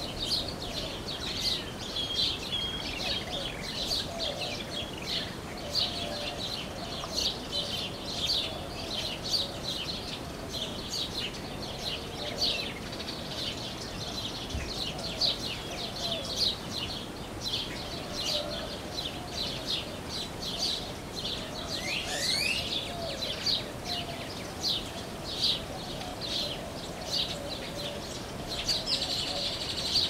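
Small songbirds chirping: a steady run of short, high chirps, about two a second, with one rising call about two-thirds of the way through.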